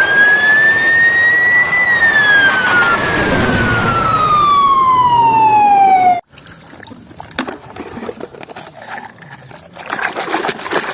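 Fire-engine siren wailing: one slow rise in pitch, then a long steady fall, cut off abruptly about six seconds in. Quieter clicks follow.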